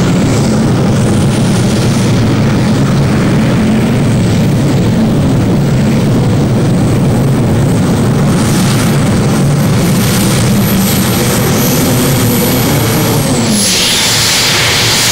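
Rolls-Royce Griffon V12 aero engine in a modified pulling tractor running hard under load as it drags the weight-transfer sled. About thirteen seconds in, its pitch falls and the low engine sound drops away as the tractor loses speed and the pull comes to a stop.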